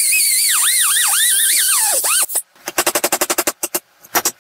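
Angle grinder cutting a slit into a seized mower-blade adapter on a lawn mower engine's crankshaft, its whine wavering up and down in pitch as it bites. It stops about two seconds in, and after a short pause comes a fast run of sharp hammer strikes on a chisel, driving the cut adapter off.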